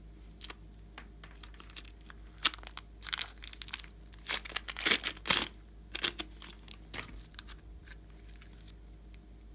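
Plastic piping bag filled with slime crinkling and tearing as hands squeeze and pull it open: scattered sharp crackles, thickest and loudest around the middle, then thinning out.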